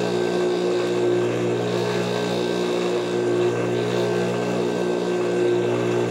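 Steady electric hum of a Juki industrial sewing machine's motor running at idle while the needle is not stitching.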